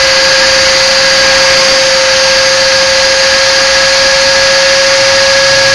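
WT130 Dyna Tearor homogenizer running at high speed with its probe in a beaker of oil and water, dispersing them into a cream: a loud, steady high whine over a dense hiss.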